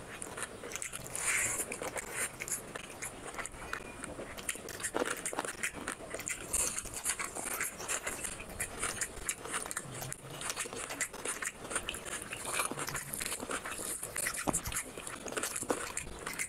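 Close-miked eating of rice and chicken curry by hand: a steady run of wet chewing and lip-smacking, with dense short mouth clicks.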